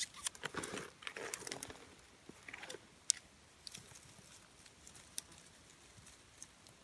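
Dry twigs and small leafy branches rustling and crackling as they are handled and laid over a tinder bundle in a fire pit. The rustling is busiest in the first few seconds, then thins to a few scattered clicks.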